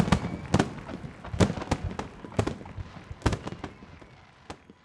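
Fireworks going off: a string of sharp bangs and crackles that come less often and grow fainter, fading away near the end.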